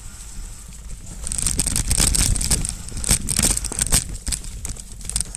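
Mountain bike tyres rolling over dry fallen leaves on a dirt trail: a dense crackling crunch that rises about a second in, over a steady low rumble.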